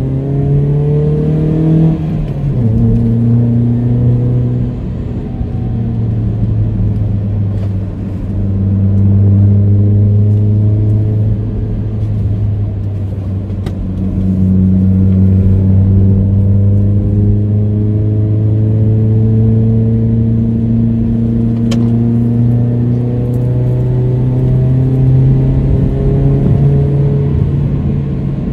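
Proton Inspira 1.8's 1.8-litre MIVEC four-cylinder engine, heard from inside the cabin, pulling uphill under throttle. Its note falls sharply about two seconds in, then climbs slowly and eases off several times as the revs rise and drop.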